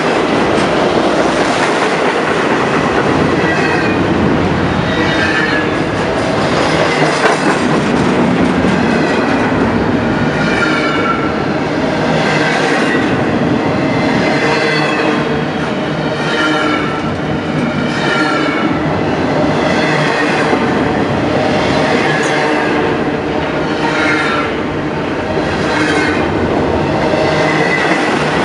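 Railroad cars rolling past on the tracks: a steady rumble of wheels on rail, clacking over rail joints, with short high wheel squeals again and again.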